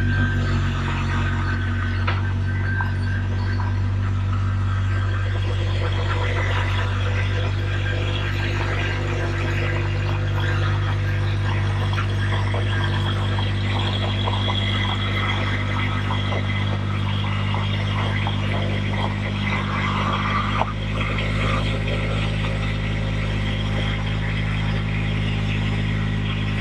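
Small tractor engine running steadily while the machine drives across the yard, its pitch shifting slightly about twenty seconds in.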